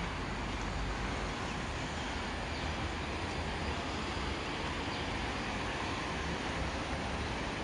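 Steady outdoor background noise: an even hiss with a low rumble, no distinct events.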